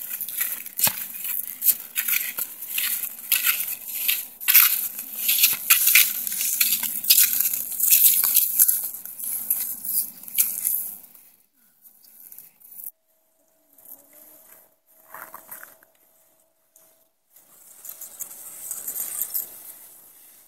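Irregular crunching and scraping on packed snow for about the first eleven seconds, then much quieter with only scattered faint crunches.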